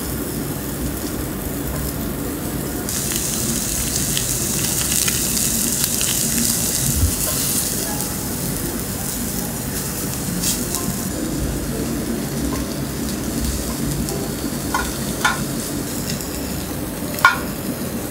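Chicken yakitori skewers sizzling over a binchotan charcoal grill, a steady hiss that swells louder for several seconds in the middle. A few light clicks of skewers and metal near the end.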